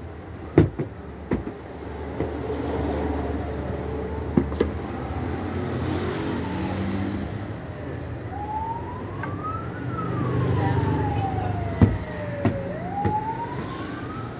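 A siren wailing in slow rises and falls, starting about eight seconds in, over a low steady rumble. A few sharp knocks, the loudest just after the start and about twelve seconds in.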